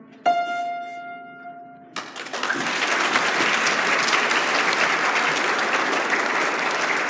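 Final note of a piece struck on a Yamaha grand piano and left to ring for about a second and a half, then audience applause breaks out and carries on steadily.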